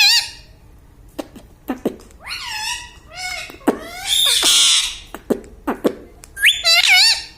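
Pet parrot calling: a run of short whistled calls that bend up and down, sharp beak clicks, and one loud harsh screech about four to five seconds in, with more warbling calls near the end.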